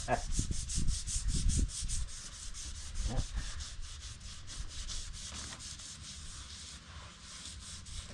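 Sanding by hand: a steady rasping rub with an even, quick rhythm of strokes, which pauses briefly near the end. A few low knocks come in the first couple of seconds.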